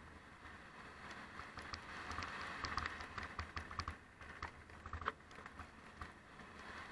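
Mountain bike tyres rolling over loose gravel and stones, a steady crunching hiss scattered with sharp clicks and rattles from stones and the bike.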